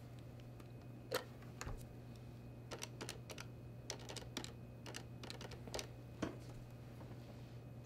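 Buttons on a corded office desk phone's keypad pressed one after another: a series of short, irregular clicks, about a dozen in all, over a low steady hum.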